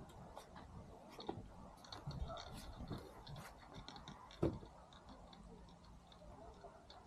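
Faint, irregular clicks and taps, with one louder knock about four and a half seconds in.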